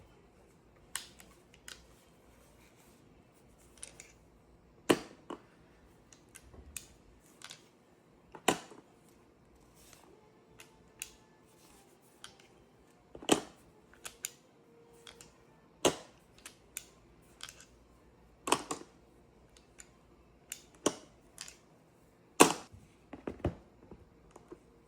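Air pistol being cocked and fired: sharp cracks every few seconds, each with smaller mechanical clicks of the action between them.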